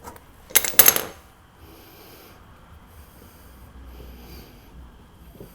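A few sharp metal clinks as the drain plug comes free. Then the front axle's hydraulic fluid chugs out of the drain hole into a drain pan in uneven gulps about once a second, held back because the fill plug is still shut and no air can get in.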